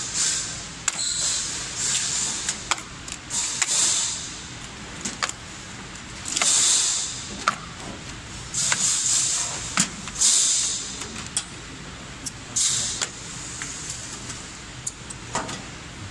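Snap-on plastic link covers of a laser cutter's cable drag chain being pried open with a screwdriver: a string of irregular sharp plastic clicks and snaps, with bursts of scraping and rustling between them.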